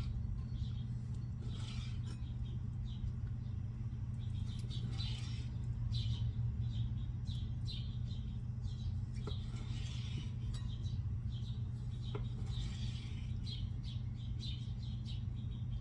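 Kitchen knife slicing raw chicken breast into strips on a cutting board, with a couple of light taps of the blade on the board, over a steady low hum.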